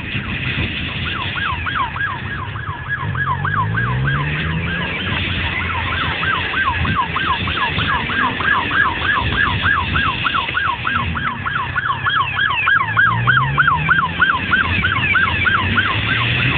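Police siren in fast yelp mode, its wail sweeping up and down about four or five times a second, with a short break about five seconds in. Engines rev underneath it twice.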